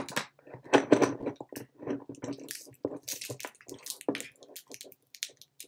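Handling noise: fingers gripping, rubbing and tapping on the recording phone or camera as it is repositioned, a string of irregular scrapes and clicks.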